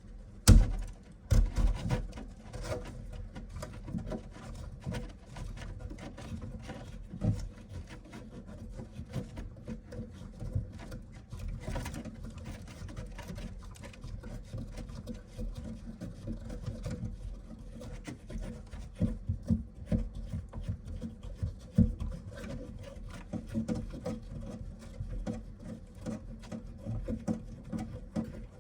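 Hand tools and faucet parts being handled under a kitchen sink during faucet removal: irregular knocks, clunks and rubbing, the loudest a sharp knock about half a second in.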